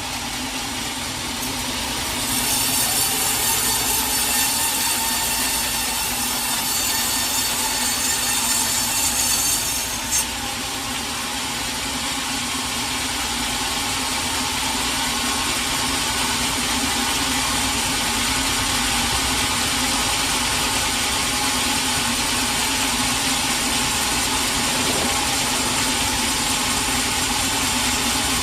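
Sawmill saw running and cutting through a log, a steady machine hum under the cutting noise. The cut is brighter and hissier for the first several seconds and ends in a short knock, then the machinery runs on evenly.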